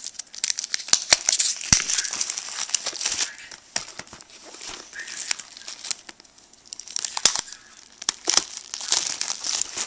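Clear plastic shrink-wrap crinkling and crackling as it is handled and peeled off a DVD box set. The crackling comes in two busy spells, one in the first few seconds and another near the end, with quieter handling between.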